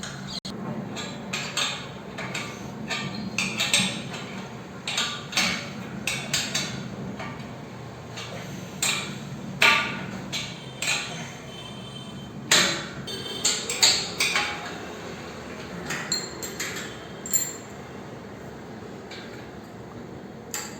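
Irregular metallic clinks and clanks of bolts, nuts and steel parts being fitted while the steel legs of a power rack are bolted together, some ringing briefly.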